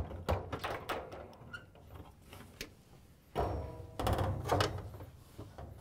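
Dryer's front bulkhead being worked loose from the cabinet frame: a run of knocks, clunks and rattles as its tabs are lifted out, louder a little past halfway.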